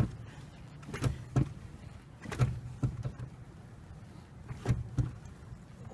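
Brake pedal of a 2003 Mitsubishi Lancer ES being pumped repeatedly after a brake pad change, giving a series of irregularly spaced knocks and clicks. The pumping pushes the caliper pistons back out against the new pads.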